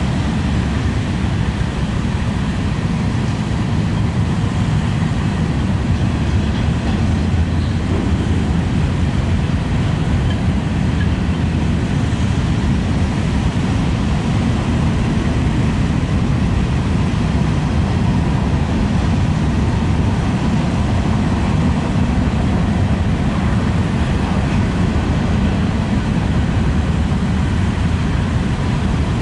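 Freight cars of a passing BNSF freight train rolling by on the rails, a steady, unbroken rolling noise.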